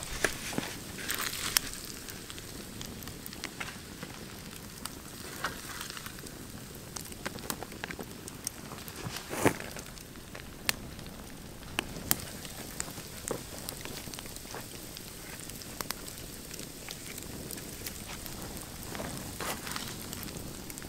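Wood campfire crackling and popping under a skillet of potatoes and meat sizzling steadily, with a sharp pop about halfway through as the loudest sound.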